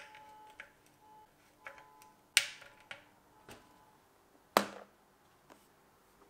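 Irregular sharp clicks and knocks of handling or tapping, with two much louder knocks about two and a half and four and a half seconds in, each dying away briefly.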